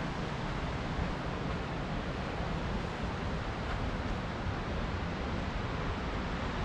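Wind buffeting the microphone, with low uneven rumbling, over a steady rushing hiss.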